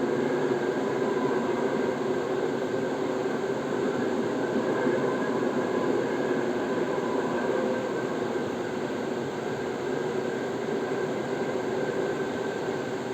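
A train running along the track: a steady noise that eases slightly from about eight seconds in.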